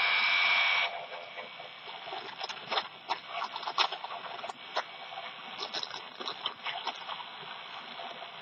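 County Comm GP-5DSP portable shortwave radio, tuned to 10 MHz, hissing with static from its speaker. A loud rush of noise with a steady whistle lasts about the first second as the antenna coax is touched to it. After that comes a quieter hiss with irregular crackles and clicks.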